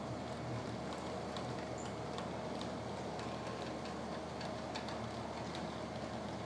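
00 gauge model trains running on the layout: a steady running hum with light, irregular clicking of wheels over the rail joints.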